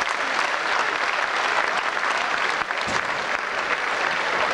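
Boxing crowd applauding steadily, a dense, even clapping.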